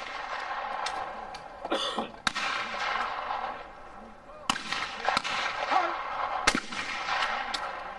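Shotgun shots on a trap line, three loud ones about two seconds apart, with fainter shots in between.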